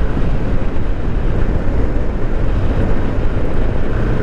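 Steady wind and road rumble of a Yamaha NMAX 155 scooter being ridden on the highway, its engine running underneath.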